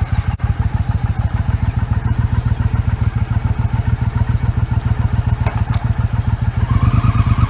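Motorcycle engine idling with an even, fast beat of about ten pulses a second; it picks up slightly about seven seconds in.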